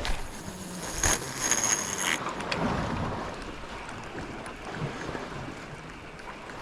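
Sea waves washing against the shore and wind buffeting the microphone. For about the first two seconds a spinning fishing reel gives a high whir that stops suddenly.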